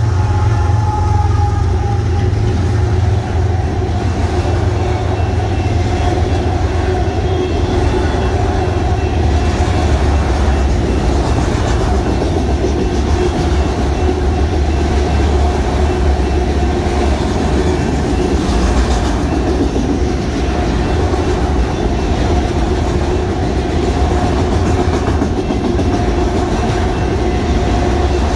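Freight train passing close by: BNSF diesel locomotives going by, followed by a long line of autorack cars rolling past with a steady heavy rumble and wheel clatter on the rails.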